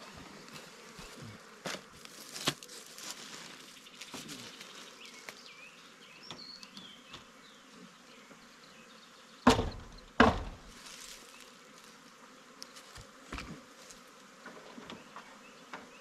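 Honeybees from a swarm buzzing in flight close around. A little past halfway there are two sharp knocks, the loudest sounds here.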